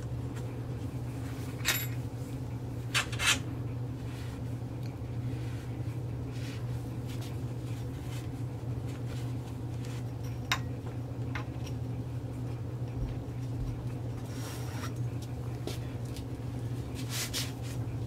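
Scattered clicks, knocks and rag rubbing as the Bontrager Drop Line dropper post body is wiped out by hand in a repair stand, over a steady low hum.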